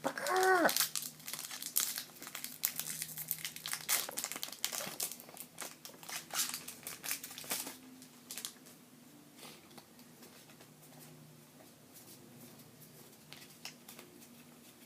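Foil wrapper of a Pokémon trading-card booster pack being torn open and crinkled in the hands. The crackling is dense at first and dies down to light handling about eight seconds in.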